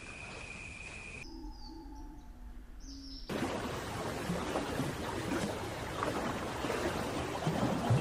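Spliced outdoor nature ambience. A steady high buzz for about the first second gives way to a quieter stretch with a few faint bird calls. About three seconds in, a dense rushing noise full of small crackles and patters takes over.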